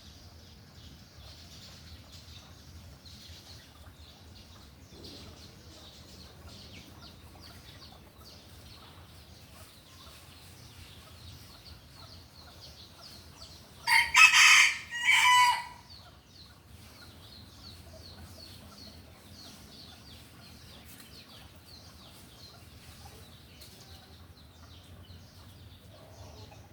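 Rooster crowing once, about halfway through: one loud call of about two seconds that breaks into two parts. Faint high chirping goes on throughout.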